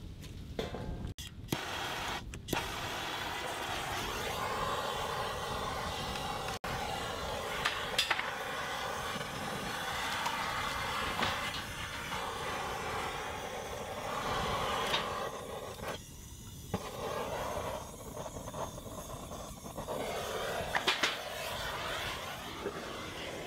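Handheld propane torch burning with a steady hiss, held to the fire starters under the firewood. It drops out briefly about two-thirds of the way through. A few knocks of wood being set down come in the first couple of seconds.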